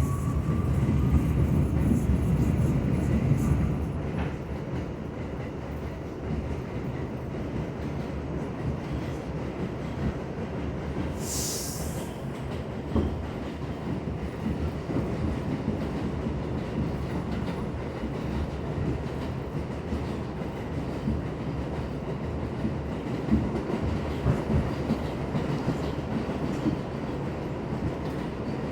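R62 subway train running on the track: a steady rumble with wheel clatter over the rails, louder for the first four seconds. A faint rising whine fades in the first second, and a short high hiss comes about eleven seconds in.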